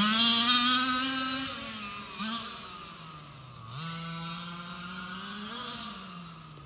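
Small gasoline engine of a large-scale RC monster truck revving on the run. Its pitch climbs over the first second and a half and then drops away. It holds steadier and fainter through the rest, with a brief dip near the end.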